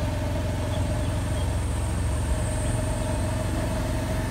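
Steady engine and road rumble of a vehicle driving along, heard from on board, with a constant hum over it.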